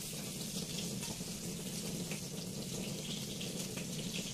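Steady hiss of running water, with a low hum underneath.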